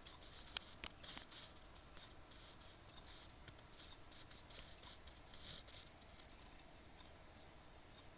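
Faint, irregular scratchy clicking and chirping from inside an all-in-one PC, heard at its back, with a brief thin squeal a little past six seconds in. It is an abnormal noise that the owner takes as a warning sign of impending failure.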